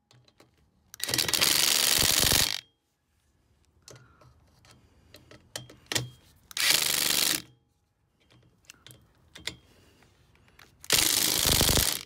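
Ryobi cordless drill/driver running in three short bursts, driving the mounting screws of a 7-way trailer socket tight. The first burst is the longest. Faint small clicks fall between the bursts.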